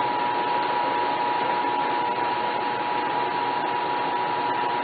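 Steady hiss of background noise with a constant high whine running through it. There are no cracks, knocks or other distinct events.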